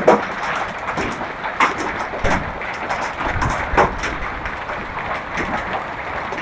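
Hailstorm: a steady roar of hail and rain coming down, with irregular sharp cracks of hailstones striking hard surfaces. A low rumble swells briefly in the middle.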